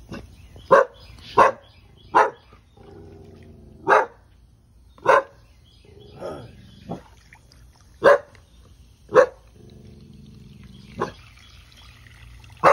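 A pitbull barking at chickens, which it is described as being scared of: about nine short, sharp barks at uneven intervals, with fainter drawn-out sounds in some of the gaps.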